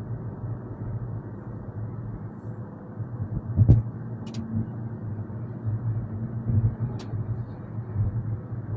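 Steady low drone of engine and road noise inside a vehicle's cab while driving on the motorway, with a single thump about three and a half seconds in and a couple of faint clicks later.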